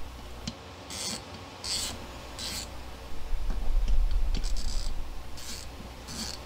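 7/16 inch screws being backed out of the lift's cast gearbox with a wrench: short rasping, scraping strokes about once a second, with a low rumble from handling through the middle.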